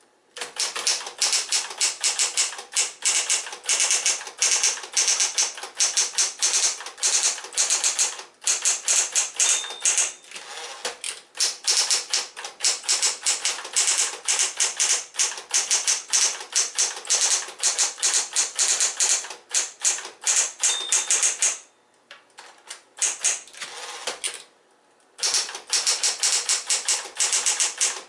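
Smith-Corona Electra 120 electric typewriter typing fast: a dense, rapid run of key strikes, breaking off briefly twice near the end before the typing resumes.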